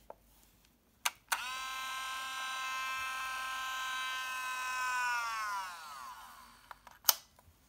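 Olympus Trip AF 50's built-in film transport motor whirring with a steady high whine for about four seconds, then winding down with falling pitch. Two small clicks come just before the motor starts, and a sharp click comes near the end.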